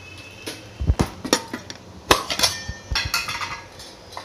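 Metal spoon and steel kitchen containers clinking and knocking, a quick string of sharp clatters as spices are spooned out. They begin about a second in and die away near the end, the loudest about two seconds in.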